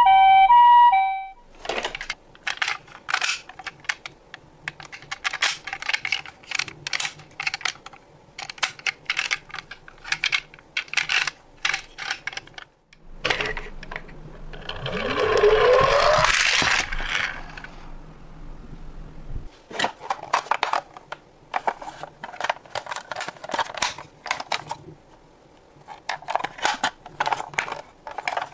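Toy ambulances being handled: many small clicks and rattles of plastic and die-cast parts. At the very start a toy's electronic two-tone siren sounds and then cuts off. About halfway through there is a rising whine as a die-cast ambulance is pushed along the table.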